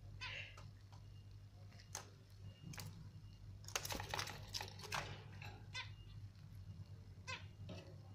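Peach-faced lovebird giving short chirps, a few scattered ones and a quick run of them about four seconds in, over a low steady hum.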